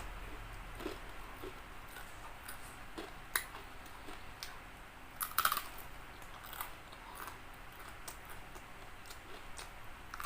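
A person eating crispy fried chicken: soft chewing broken by scattered crunches and mouth clicks. The loudest crackling crunch comes about five seconds in.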